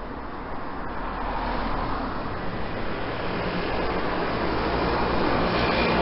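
Road traffic noise: a steady rush of engines and tyres with a low engine hum, growing steadily louder over the few seconds.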